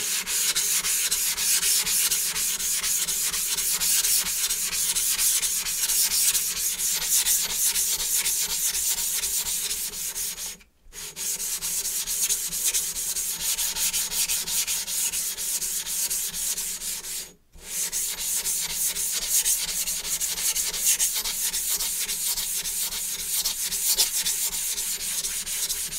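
Atoma 140 diamond plate rubbed back and forth over a wet whetstone to flatten (lap) its surface: a continuous gritty scraping that breaks off briefly twice.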